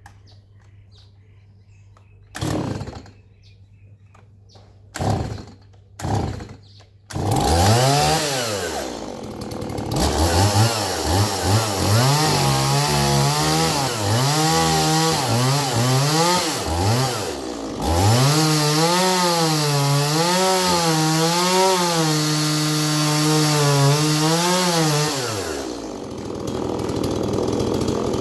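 Stihl MS170 two-stroke chainsaw pull-started: three short pulls, then it catches about seven seconds in. It is then revved up and down again and again, with a brief drop near the middle, and settles to a lower, steadier running sound near the end.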